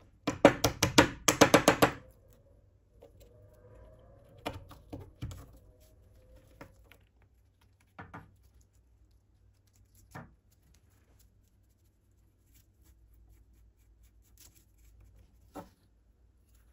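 A quick run of about a dozen sharp knocks in under two seconds, then scattered light clicks and knocks as wooden knife handle scales are pressed onto the tang's brass pins and clamped with a spring clamp.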